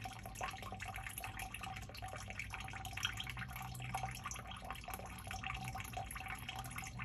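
Water trickling and dripping into a sump pit basin, a continuous patter of small irregular drips and splashes over a steady low hum.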